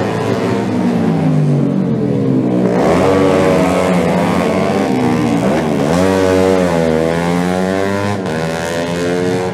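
Several racing motorcycle engines revving hard as bikes pass one after another, each engine's pitch rising and then dropping as it goes by.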